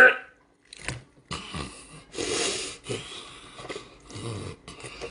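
A man biting, chewing and sucking on a raw octopus close to the microphone, in a series of irregular wet, noisy bursts with short pauses.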